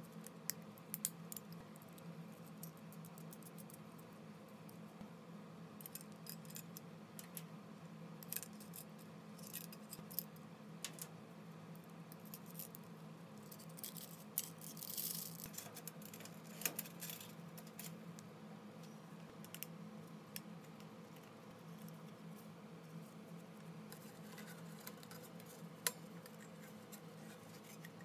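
Small steel hardware clicking and clinking as it is handled: a pipe saddle clamp and snap-hook carabiners fitted onto a stainless chimney pipe. A short scraping of a screw-top lid on a glass jar comes about halfway through, over a steady low hum.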